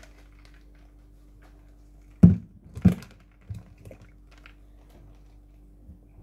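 A plastic water bottle with a straw lid handled close to the microphone: two loud thumps about half a second apart a little over two seconds in, then a few softer knocks, over a faint steady hum.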